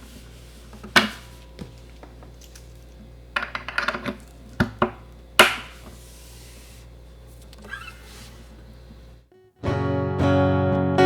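Steady low electrical hum with scattered clicks and knocks of handling. After a brief break near the end, a Gretsch Jim Dandy dreadnought acoustic guitar is strummed, heard through its DeArmond Tone Boss pickup plugged straight into the recorder with no amplifier.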